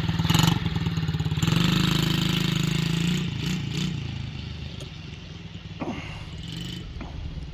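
Small youth dirt bike's engine running as it pulls away. It picks up and gets louder about a second and a half in, then gradually fades as the bike moves off.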